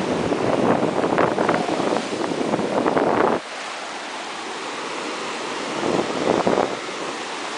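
Ocean surf breaking and washing up a sandy beach, with wind buffeting the microphone. The buffeting drops away abruptly about halfway through, leaving the steady hiss of the surf, and picks up again near the end.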